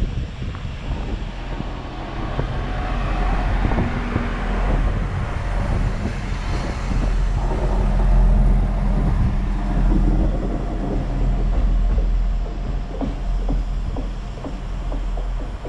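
SA133 diesel railcar passing close by and pulling away: the diesel engine runs under power and the wheels rumble on the rails, loudest as it passes about eight seconds in, then easing as it moves off with a few wheel clicks.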